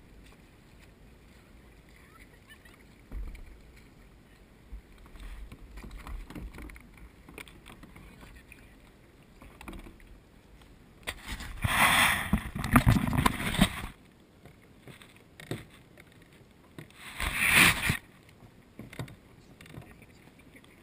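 Sea kayaking: quiet lapping water with a few soft paddle strokes, then two loud splashing rushes of water, a long one about halfway through and a shorter one a few seconds later.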